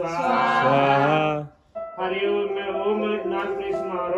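Devotional music with a man singing. It breaks off briefly about one and a half seconds in, then resumes.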